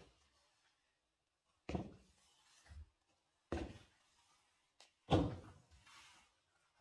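Footsteps of big sandals on a hard floor: slow, evenly spaced heavy thuds about 1.7 s apart, with fainter knocks in between.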